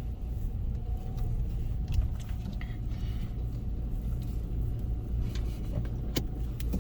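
Steady low rumble heard from inside a car's cabin as it moves through an automatic car wash tunnel, with a few short knocks about two and six seconds in.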